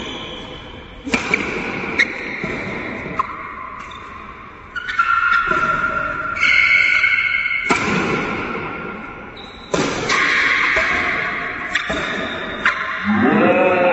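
Badminton rackets striking a shuttlecock in a rally, sharp irregular cracks every second or two, over background music with long held notes and a singing voice coming in near the end.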